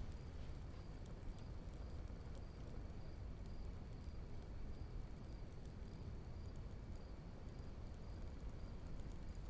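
Crickets chirping, a faint high chirp repeating about twice a second, over a low steady rumble.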